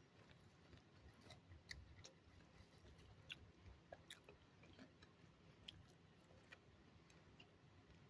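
Faint chewing of soft omelette close to the microphone, with small irregular wet mouth clicks.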